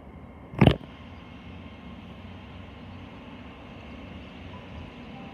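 Class 800 bi-mode Intercity Express Train running on diesel as it comes along the platform, a low steady rumble that grows a little louder. A single sharp thump about half a second in is the loudest sound.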